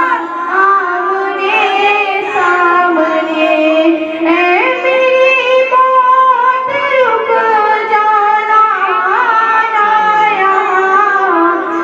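A female voice singing a naat, an Urdu devotional poem in praise of the Prophet, in long held notes that bend and slide between pitches.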